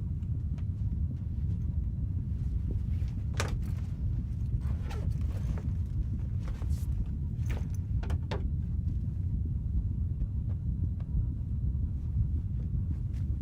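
A steady low rumble, with a few brief clicks or knocks scattered through the middle.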